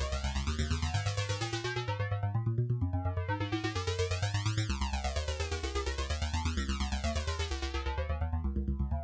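Electronic background music: synthesizer over a steady pulsing beat, with a sweeping filter effect that rises and falls every couple of seconds.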